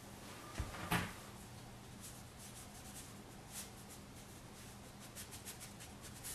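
Faint scratchy strokes of a watercolor brush working across sketchbook paper, with a soft thump and a sharper knock about a second in, over a low steady hum.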